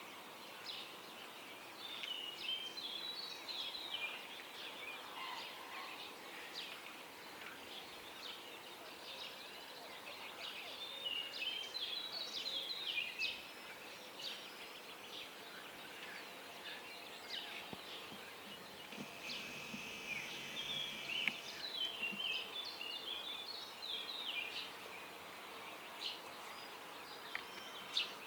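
Songbirds singing in the dawn chorus: bouts of quick, chirpy song phrases come and go over a steady faint background hiss.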